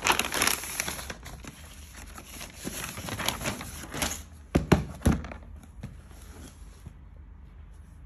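Thin plastic carrier bag rustling and crinkling as a cardboard box is pulled out of it, then a few sharp knocks as the box is set down and handled about halfway through.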